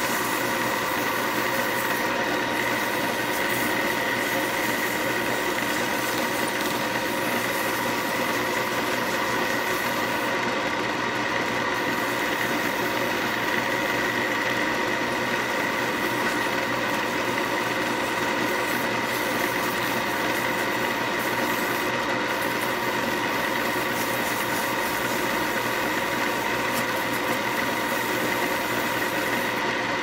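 Wood lathe motor running steadily with a constant whine, spinning a snakewood pen blank on its mandrel while it is hand-sanded with sandpaper.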